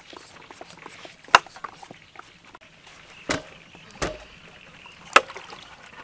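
Knives peeling green papayas, with light scraping and ticking of the blades. Four sharp knocks stand out, about a second or more apart, and the one about four seconds in is a duller thump as a peeled papaya is set down in a woven bamboo basket.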